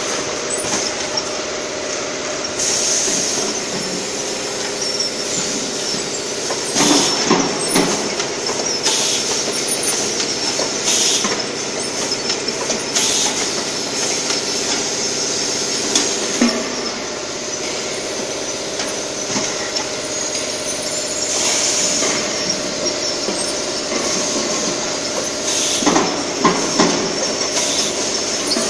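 Automatic four-nozzle weighing paint filling and capping machine running: a steady motor hum with several held tones, short hisses of compressed air from its pneumatic parts now and then, and metallic clanks of tin cans and the cap press, heaviest about a quarter of the way in and again near the end.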